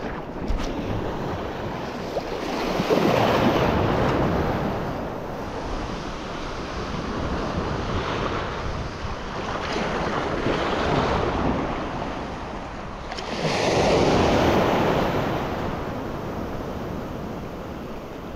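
Sea surf breaking and washing up the beach in repeated surges, loudest a few seconds in and again about two-thirds of the way through, with wind on the microphone.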